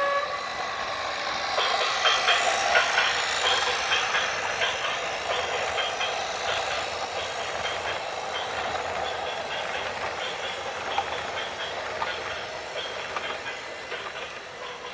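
Rattling, clanking noise of a heavy vehicle on the move, with a horn cutting off right at the start.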